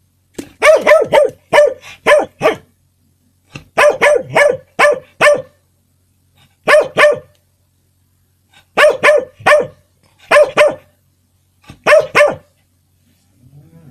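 A small short-haired dog barking in quick volleys of two to seven sharp, fairly high-pitched barks, about six volleys with short pauses between them.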